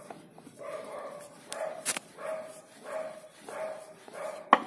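Wooden rolling pin rolling a chapati back and forth on a wooden rolling board. The strokes are regular, about one every 0.6 seconds, each with a humming, squeak-like tone. A sharp knock comes near the end.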